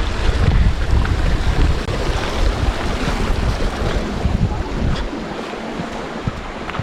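Wind buffeting the microphone: a loud rushing with heavy low rumble that eases about five seconds in.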